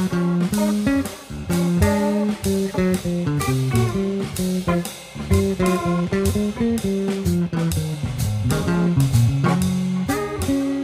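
Live jazz-fusion trio music: an electric bass played fingerstyle in quick, busy melodic lines, with a drum kit behind it.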